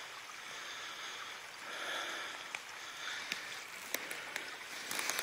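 Footsteps through wet leaf litter and underbrush: rustling swishes that swell and fade, with several sharp snaps or clicks.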